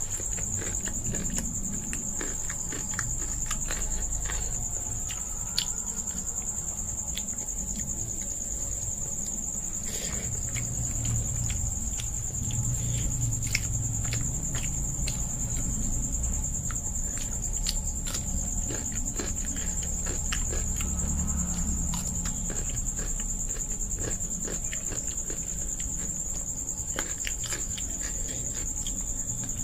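Eating by hand: soft clicks and smacks of fingers working rice on a plate and of chewing, over a steady high-pitched trill of insects.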